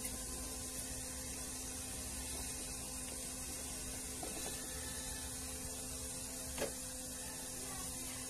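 A CRT TV's plastic back cover being handled, with a few faint clicks and one sharp knock about six and a half seconds in, over a steady electrical hum and hiss.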